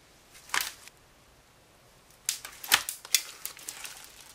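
Hands pressing and spreading blue slime mixed with small foam beads: one sharp sticky pop about half a second in, then a quick run of crackling pops and clicks from about two seconds in.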